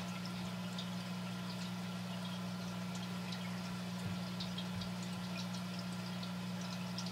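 Aquarium filter running: a steady low hum with water trickling and dripping, small splashes and drips scattered through it.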